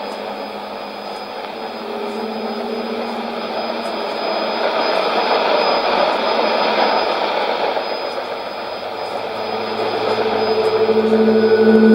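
Shortwave test transmission from the Nauen transmitter on 5990 kHz, heard through a Sony ICF-2001D receiver: a steady rushing noise with a low steady tone underneath. Higher steady tones come in briefly about two seconds in and return, louder, near the end.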